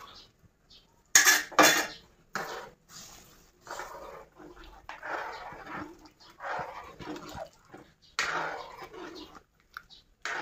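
Metal spatula striking a steel kadai twice with sharp clinks, then scraping and stirring through a watery, simmering stew in the pan in a series of short strokes.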